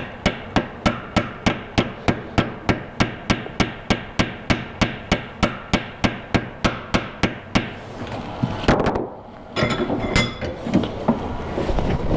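Small ball peen hammer lightly and evenly tapping, about four taps a second, peening over a rivet end on an iron pendant held in a bench vise. The taps stop about seven and a half seconds in, followed by a few irregular clanks and scrapes as the bench vise is worked open.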